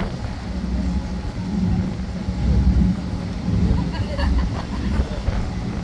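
Sightseeing boat's engine running with a steady low drone, heard from the open deck, with faint voices of passengers about two thirds of the way in.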